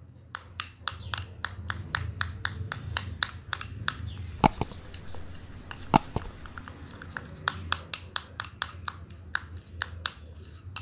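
Quick clicks and taps, about four a second, of a toothbrush knocking against a small dish as it stirs a paste of toothpaste, tomato and lemon juice, with two louder knocks about halfway through. A low steady hum lies underneath.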